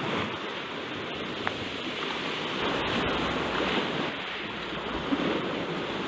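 Sea surf washing over the rocks of a boulder shore: a steady rushing noise.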